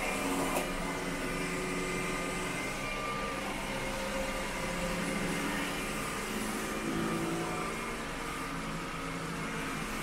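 iRobot Roomba S9+ robot vacuum running, a steady whir of its suction and brush motors with several steady tones. There is a short tick about half a second in, and the tones shift slightly a few seconds later.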